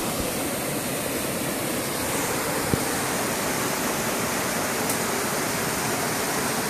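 Steady rush of river rapids, water pouring over rock ledges. One brief click about three seconds in.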